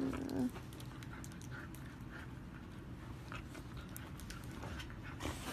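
Siberian husky's drawn-out vocal sound ending about half a second in, then quiet breathing and soft mouthing sounds as it gnaws playfully at a hand, with a short breathy puff near the end.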